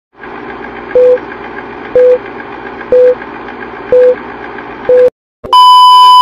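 Film-leader countdown sound effect: a projector whirring and clattering, with a short loud beep once a second, five beeps in all. After a brief break, a loud steady test tone comes in with the TV colour bars and lasts about a second.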